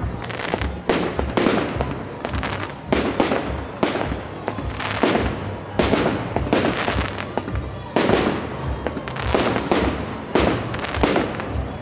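Aerial fireworks bursting in quick succession: sharp bangs about twice a second, each trailing off briefly.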